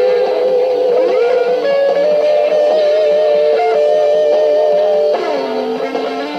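Electric guitar playing a slow lead line of long sustained notes with vibrato. It slides up about a second in and drops to a lower held note near the end.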